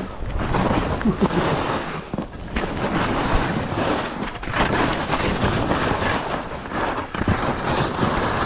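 Skis scraping and hissing over firm, wind-packed snow through a run of turns, rising and falling in swells, with wind buffeting the microphone.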